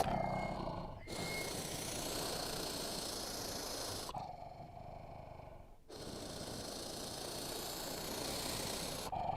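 Coelophysis dinosaur sound effects: a series of hiss-like, breathy growling calls without a clear pitch. Two long calls of about three seconds each, with shorter ones at the start and near the end, separated by brief pauses.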